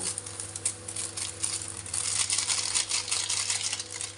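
Water boiling in a pan, a dense crackle of popping bubbles that thickens about two seconds in, over a steady low hum.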